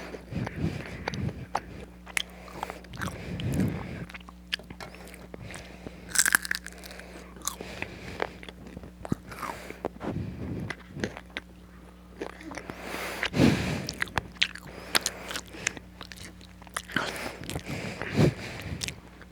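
Someone biting into and chewing crispy fries, with irregular crunches and crackles over a faint steady hum.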